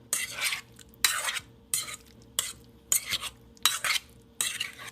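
A spoon stirring and scraping around a bowl, folding paneer cubes through a thick yogurt-and-spice marinade until they are coated: a run of short scraping strokes, roughly three every two seconds.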